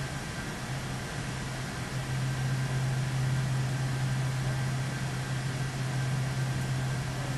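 Steady low hum under an even hiss, with a few faint thin whining tones above it and no separate events.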